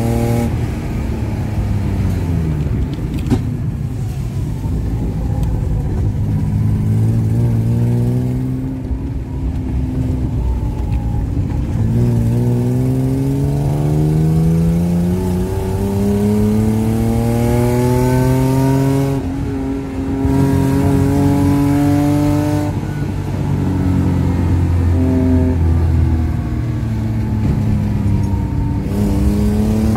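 Car engine heard from inside the cabin during an autocross run. The revs climb steadily under hard acceleration, drop sharply at gear changes or lifts, and climb again several times, with a long pull about halfway through that ends in a sudden drop.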